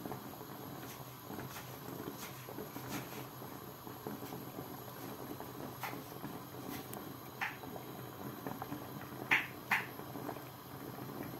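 Stainless-steel pot of dried white beans in water heating on the hob, coming up to the boil: a steady low hiss with scattered small ticks of bubbles, and a few sharper pops in the second half.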